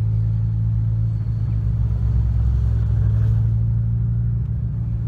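A car's engine running steadily, a low even drone.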